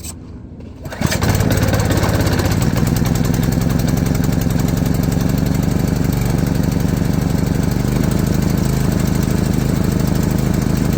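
Pressure washer's small gasoline engine catching about a second in and then running steadily at full throttle with the choke on: a cold start.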